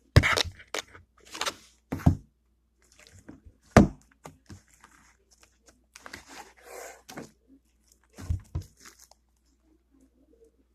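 Slime being squished and stretched by hand: irregular sticky crackles and squelches in short clusters, with a few sharper thuds.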